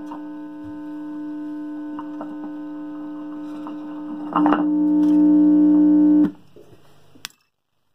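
Mains hum from an unshielded microphone element sitting in the open air, picked up from the room's AC wiring and played through a PA amplifier's speaker: a steady buzzing hum. After a click about four and a half seconds in, the hum jumps louder. It cuts off suddenly about a second and a half later, and a single sharp click follows.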